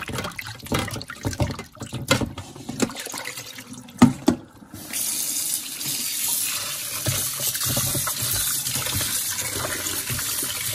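Hands sloshing and rubbing a raw Cornish hen in a stainless steel bowl of water, with splashes and one sharp knock about four seconds in. About a second later a kitchen tap turns on and runs steadily, pouring onto the hen in the bowl in a steel sink.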